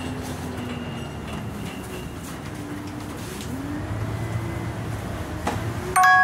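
Scania N94UB single-decker bus's engine and drivetrain running, heard inside the passenger cabin while it drives slowly, with a faint whine that falls in pitch and later rises. Near the end a sudden loud ringing ding cuts in.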